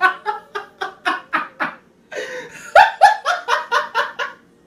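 A woman laughing in two bouts of rapid 'ha-ha-ha' pulses, about four a second, with a breath between them. The second bout is louder.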